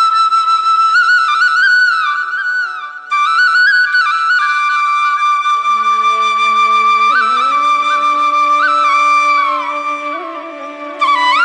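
Background music: a flute playing a slow melody with ornamented turns and long held notes. There is a brief break about three seconds in, and lower sustained tones join about halfway through.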